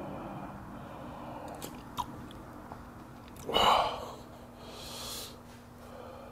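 A person eating hot stew from a metal spoon, with soft chewing and breathing. There is a light spoon click about two seconds in, a loud short breath over the hot broth about three and a half seconds in, and a softer breathy hiss near five seconds.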